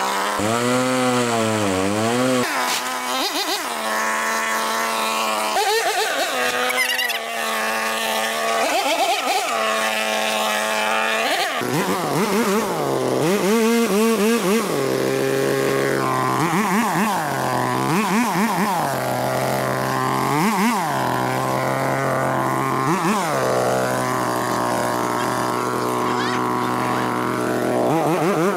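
Small petrol engine of a handheld garden power tool running at high speed. Every few seconds its pitch briefly dips and climbs back up, as the throttle is eased and reopened or the tool takes load.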